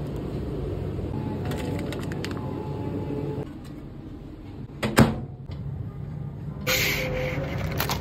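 A microwave oven humming, stopping about three and a half seconds in; a second and a half later one loud clack of its door. Near the end, a crackly plastic rustle.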